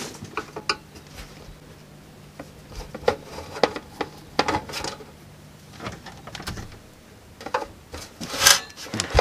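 A metal-cased 30 V 10 A bench power supply being handled on a workbench: scattered knocks, taps and clicks as it is shifted and turned over, with a louder knock about eight and a half seconds in.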